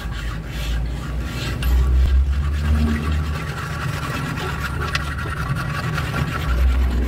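Scraping and rubbing by hand on the metal of a truck clutch pressure plate, in repeated short strokes, over a low rumble that grows louder twice.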